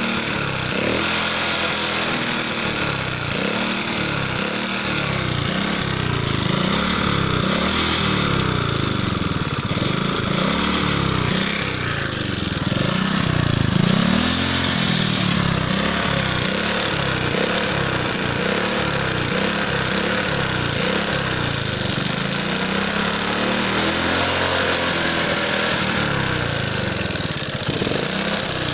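Alpha moped's single-cylinder four-stroke engine running with a rattling knock, revs rising and falling repeatedly. The owner suspects the piston striking a valve after the engine was run low on oil.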